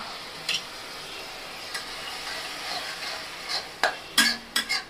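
Onion-tomato masala sizzling steadily in a metal kadai, with a spatula stirring and scraping against the pan: a couple of light knocks early, then a quick run of sharp scrapes and clanks in the last second and a half.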